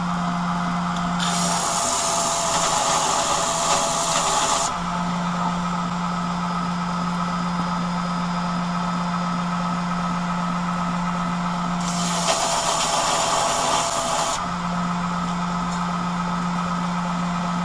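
Wilmont belt grinder running with a steady low hum, and a steel knife blade pressed against the belt over the small plunge-attachment wheel twice, each a grinding rasp of about three seconds, the first about a second in and the second about twelve seconds in. The grinding cleans up the blade's flat grind and reshapes its plunge.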